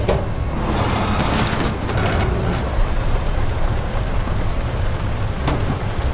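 Storm sound effects: a steady, heavy low rumble, with a sharp crash at the start and another about five and a half seconds in.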